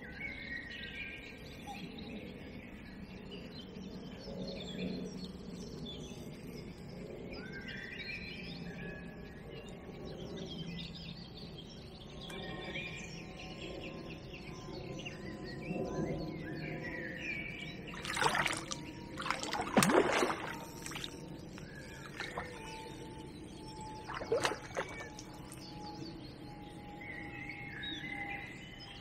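Birds singing, with a cluster of loud water splashes about two-thirds of the way through and another shortly after.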